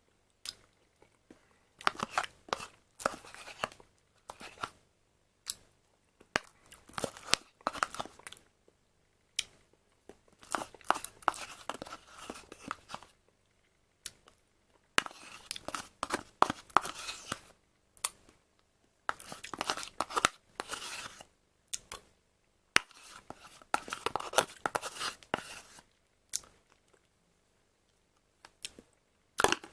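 Close-up handling of a plastic fruit-quark cup, heard as about six bursts of noisy scraping and rustling, each a second or two long, with single clicks between them.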